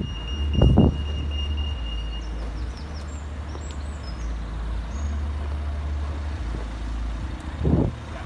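Busy road traffic with a steady low rumble, and a pedestrian crossing's beeper sounding a steady high tone that stops about two and a half seconds in. A loud thump comes just under a second in, and a van passes close by near the end.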